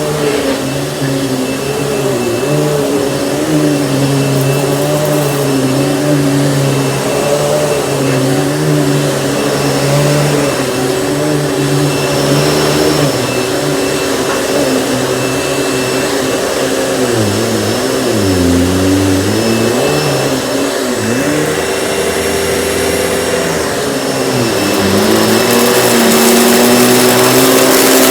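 Panasonic upright vacuum cleaner running steadily, its motor hum wavering in pitch as the load changes. The pitch dips about two-thirds of the way through, then rises and grows louder near the end.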